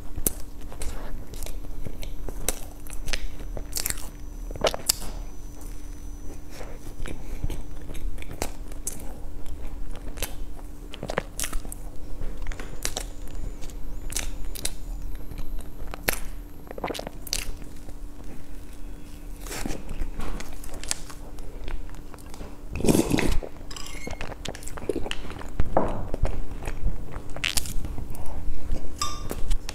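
Close-miked eating: soft bites and chewing of cream-filled sponge roll cake, with many wet mouth clicks and smacks. A louder bite or handling noise comes about three-quarters of the way through, and a faint steady hum sits underneath.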